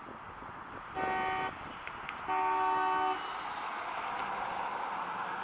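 Car horn of a 1971 Cadillac Eldorado honked twice, a short honk about a second in and a longer one a second later. Then the car drives past close by, its 500 cubic inch V8 and tyres running steadily.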